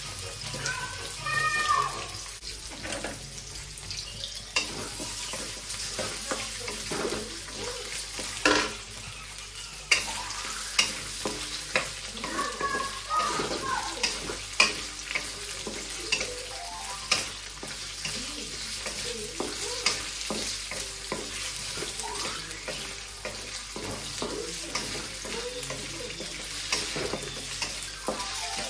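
Sliced potatoes sizzling in hot oil in a metal wok, with a wooden spatula scraping and knocking against the pan as they are stirred: a steady hiss broken by frequent sharp taps.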